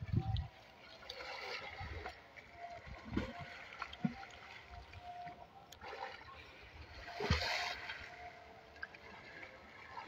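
Water splashing and sloshing around a man swimming in a canal, with a low thump at the very start and a louder splash about seven seconds in.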